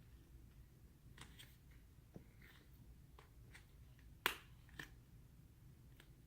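Slime being handled and poked: faint scattered clicks and pops, with one sharper pop about four seconds in and a smaller one just after.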